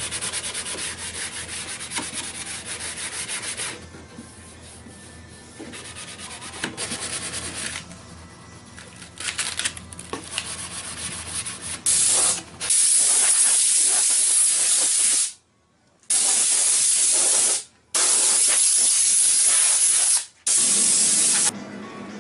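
Hand sanding with fine 600-grit sandpaper over a varnished cherry wood surface: scratchy rubbing strokes in uneven bursts, a light scuff-sand between coats of varnish. From about halfway in, compressed air from an air hose hisses loudly in four long bursts with short breaks.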